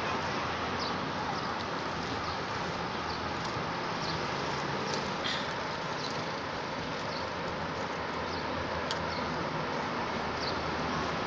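Steady outdoor background noise, like distant traffic, with faint short high chirps or ticks scattered about once a second.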